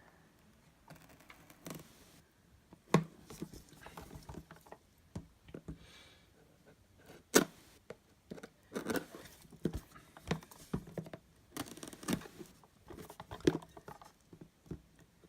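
Cardboard board-game box being opened and its contents handled: irregular scraping and rustling with scattered sharp clicks and taps, the sharpest about three and seven seconds in.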